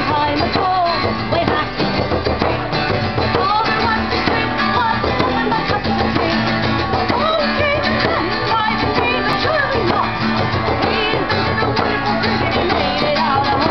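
Live acoustic pirate-folk band playing: a strummed acoustic guitar and a hand-held frame drum struck with a beater, with singing over them.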